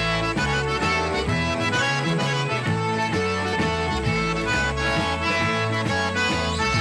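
Background music: an upbeat instrumental tune over a bass line that changes on a steady beat.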